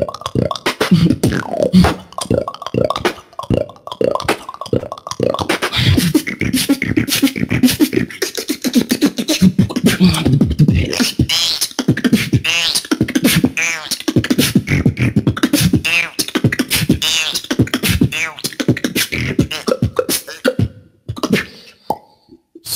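A beatboxer performing a solo battle routine: rapid kick-drum and snare-like mouth percussion, with pitched, wavering vocal tones layered in from about five seconds in. The routine stops shortly before the end.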